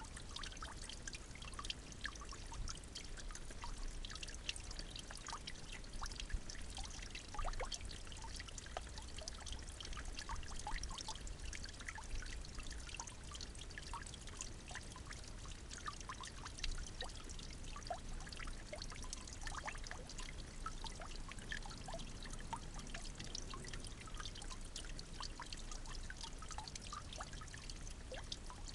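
Steady trickling of running water, with many small drips and splashes.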